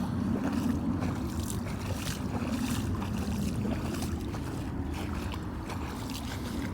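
Steady low wind rumble buffeting the microphone, with a faint wash of flood water spilling over the bank.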